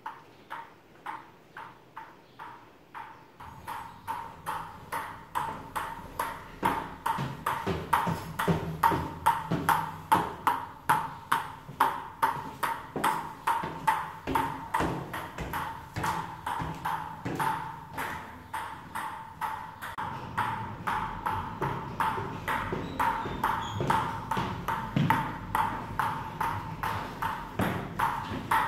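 Table tennis ball bouncing steadily on a paddle, about two to three taps a second, each a sharp click with a short ring.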